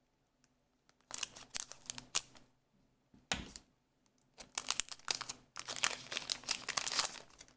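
A trading-card booster pack being opened and handled: its wrapper crinkles and tears in irregular bursts, with a long stretch of crinkling in the second half.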